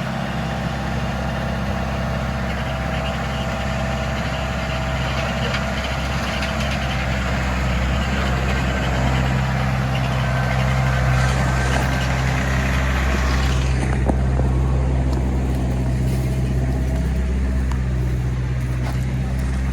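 A heavy engine running steadily at a constant speed, with a harsh rushing noise over it that drops away about fourteen seconds in.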